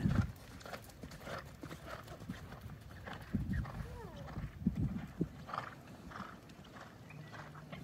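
Hoofbeats of a horse cantering on a sand arena's footing, irregular thuds. A loud low thump at the very start.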